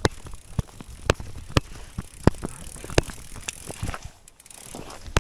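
Mountain bike bouncing over a rough forest trail, with a string of sharp, irregular knocks and rattles, about two a second, from a camera slung low under the bike.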